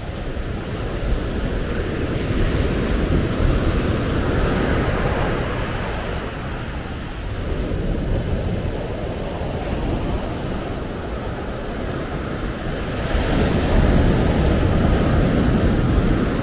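Sea waves breaking and washing up a dark sand-and-shingle beach, rising and falling in slow surges, with the loudest surge near the end.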